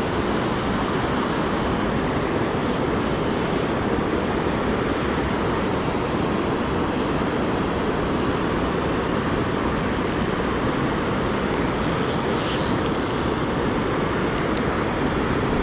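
River water rushing steadily, with a few faint high ticks about two-thirds of the way through.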